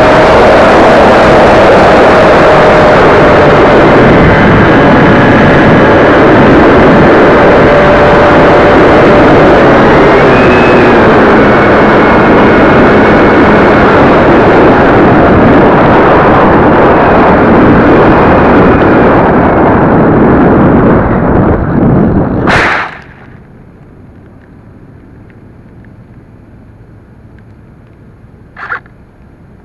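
Onboard microphone on a Bixler RC foam plane in low flight: loud rushing wind with the whine of its electric motor, the pitch shifting now and then. About 23 seconds in there is a sharp thump as the plane comes down into the weeds, leaving only a faint hiss, then one small click near the end.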